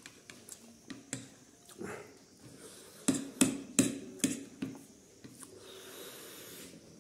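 Metal fork and spoon clinking and scraping against a ceramic plate while noodles are gathered, with a quick run of about five sharp clinks midway. Softer clicks come before it, and a brief hiss comes near the end.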